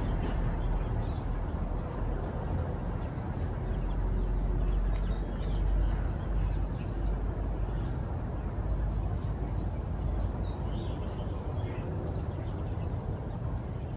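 Outdoor ambience: a steady low wind-like rumble with faint, scattered high chirps of small birds.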